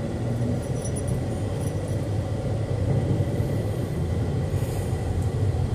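Cabin noise of a moving car: a steady low rumble of engine and road.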